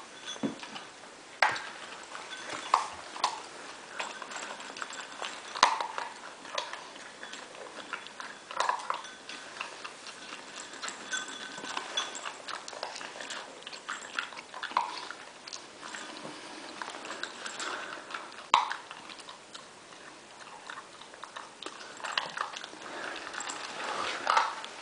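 Pit bull puppy eating from a bowl on a tile floor: an irregular run of small clicks and crunches as it chews, with several sharper knocks scattered through.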